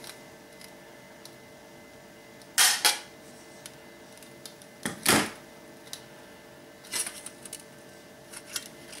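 Sharp metallic clatters from handling the thin aluminium keg sheet and tools: two close together about two and a half seconds in, a longer one around five seconds, then a few lighter clicks.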